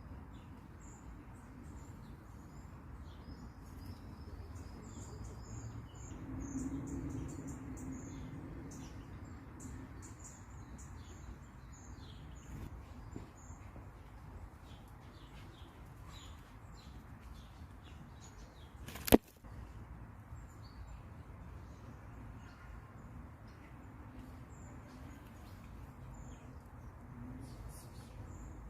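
Small birds chirping with short, high calls over a low outdoor background, with scattered faint clicks and one sharp click about two-thirds of the way through.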